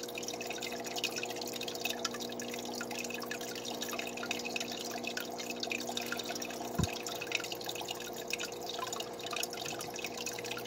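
Aquarium water trickling and dripping over a steady low hum, with a single soft knock about seven seconds in.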